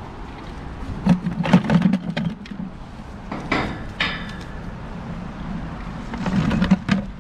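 Rusty iron railroad spikes taken from a bucket and set down on steel bar grating: clusters of clanks and scrapes about a second in, again around the middle and near the end.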